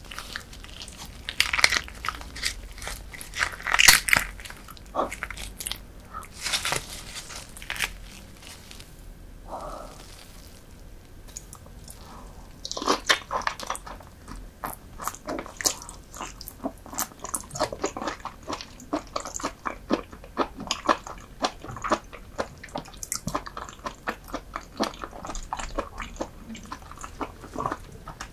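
Close-miked eating sounds from raw soy-marinated lobster and salmon-roe rice: wet biting and chewing made of many sharp clicks and crunches. A run of louder bites comes in the first few seconds, and steady clicky chewing follows from about halfway on.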